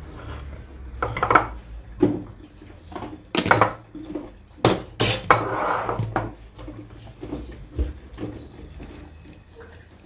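Kitchen dishes and cutlery clattering: a string of sharp clinks and knocks, loudest in the first half.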